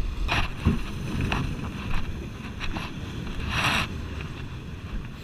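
Sea surf washing against shoreline rocks, with wind rumbling on the microphone and a few short bursts of splash, the biggest about three and a half seconds in.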